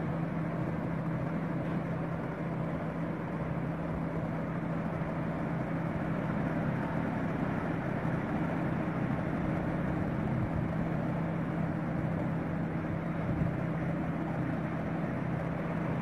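A steady low mechanical hum under an even rushing background noise, unchanging throughout.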